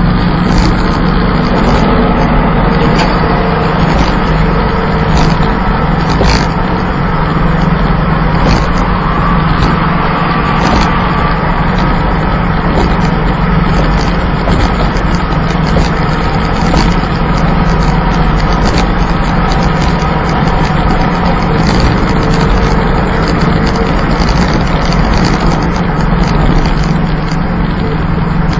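Plymouth Volaré's slant-six engine running steadily while the car cruises, with a constant low drone under road and wind noise.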